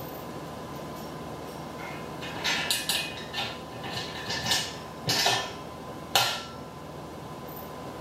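Metal clinks and rattles of loose bolts and hardware being handled and fitted against the steel tube frame of a cargo carrier: a run of a dozen or so clinks over about four seconds in the middle, ending with one sharp clink.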